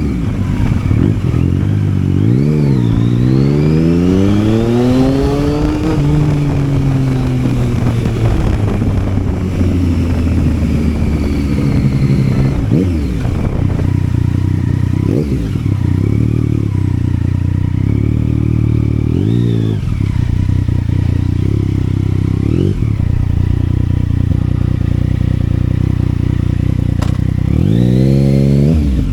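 Yamaha Tracer 900's three-cylinder engine under way, revving up through the gears in the first few seconds, then running at steady speed with several brief dips in revs at gear changes, and revving up again near the end.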